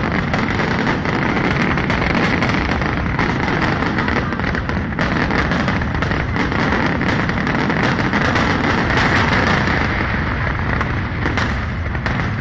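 Fireworks display going off in a dense, continuous barrage of bangs and crackles with no pause.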